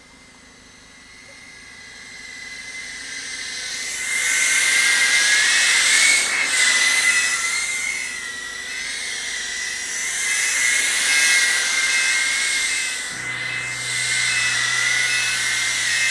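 iFlight ProTek35 cinewhoop drone's brushless motors and ducted propellers whining in flight, getting louder over the first few seconds, then wavering in pitch and loudness as the throttle changes.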